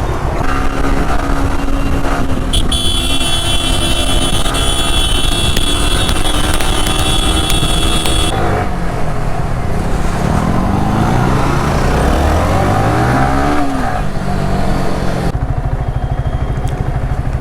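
Motorcycle engine running on the move, its pitch rising and falling as it accelerates and changes gear. A steady high whine runs for about five seconds in the first half.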